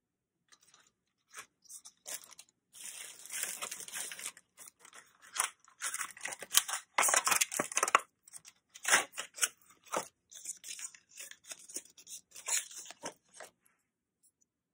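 Plastic packaging being torn open and crinkled, in irregular rustling and crackling bursts that stop shortly before the end.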